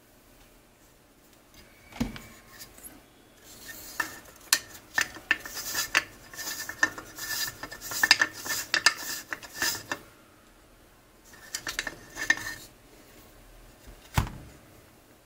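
Clinks, taps and scraping of metal and plastic as an AR-style rifle upper receiver and an Otis Star Chamber cleaning tool are handled and fitted together, with a busy run of clicking and scraping in the middle. A single knock sounds about two seconds in and another near the end.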